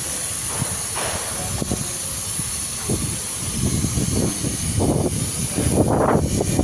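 Gas brazing torch flame hissing steadily while brazing copper AC pipe, with an uneven low rumbling that grows louder about halfway through.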